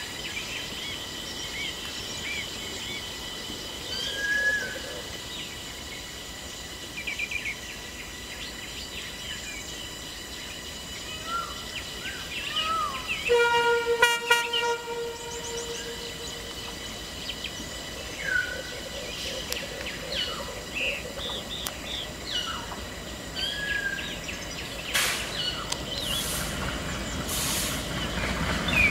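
Diesel locomotive horn blowing once, a single held note of about a second and a half, halfway through, with birds calling throughout. Near the end the low rumble of the approaching train builds, with a few sharp knocks.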